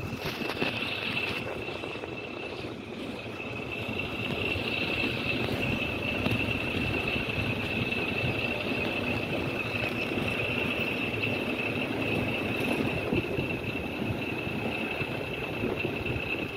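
A steady engine running with a constant high whine, growing a little louder about four seconds in.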